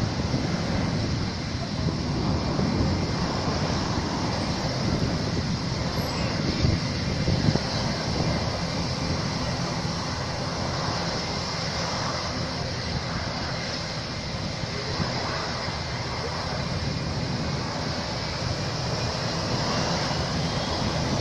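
JetBlue Airbus A321 jet engines running at low power, heard from behind the aircraft as a steady rumble and hiss, with a faint rising whine near the end.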